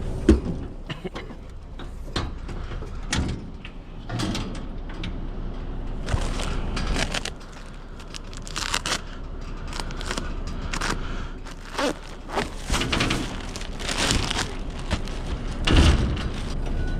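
Irregular thuds, knocks and rustles of mulch being handled and loaded into a hydroseeder, with a steady low hum underneath.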